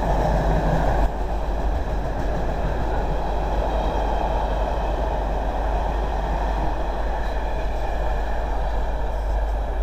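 Freight train of bogie tank wagons rolling past, with steady wheel-on-rail noise.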